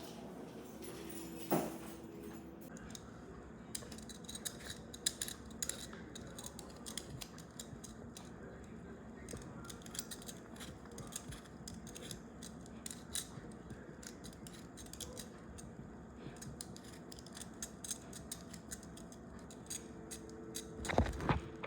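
Kitchen knife scraping and cutting at fresh produce (ginger, turmeric root, pineapple): a long run of quick, irregular scrapes and clicks, with a few louder knocks near the end.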